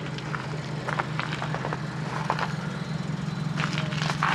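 Fiat Panda 4x4 Sisley's small four-cylinder petrol engine idling steadily, shortly after a cold start, with scattered light clicks and knocks over it.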